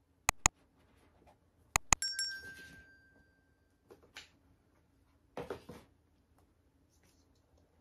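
Handling noises while an iPhone 14 Pro Max box is unboxed: two pairs of sharp clicks, the second pair followed by a clink that rings briefly, then soft rustling and handling sounds.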